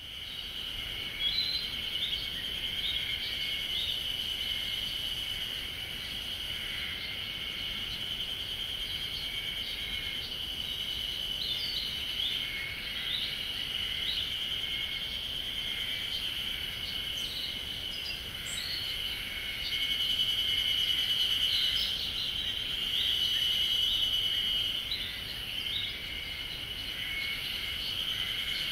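A steady, high-pitched insect drone, with short bird chirps scattered over it; it grows slightly louder about two-thirds of the way through.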